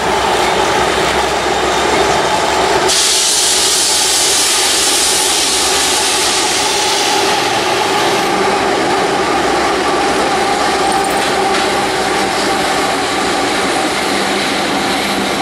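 Union Pacific diesel locomotives running light across a steel girder bridge, with a steady engine drone. A loud hiss comes in suddenly about three seconds in and fades over the next five seconds.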